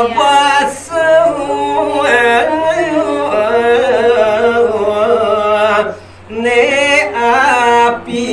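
A man singing a Balinese tembang (pupuh Sinom, geguritan style) into a microphone in long, ornamented, wavering held notes, pausing briefly about six seconds in before the next phrase.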